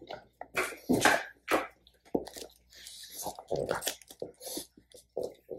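Scissors snipping the tag off a plush dog toy: a series of short, crisp, irregular cuts with crinkling as the toy and tag are handled.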